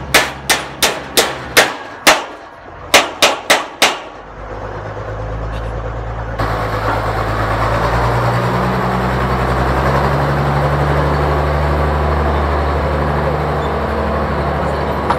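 Hammer striking a nail into a wooden fence post: about ten sharp, ringing blows in two runs, six and then four, over the first four seconds. After that a steady low drone carries on, louder from about six seconds in.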